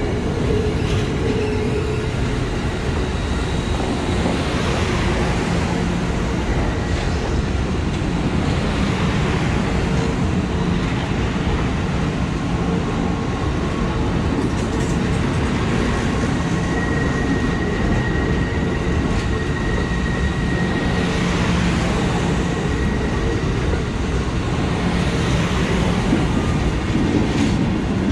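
Passenger train cars rolling past at speed: a steady rumble of wheels on rail with clattering over the joints, rising and falling as the cars go by. A faint wheel squeal sounds for a few seconds past the middle.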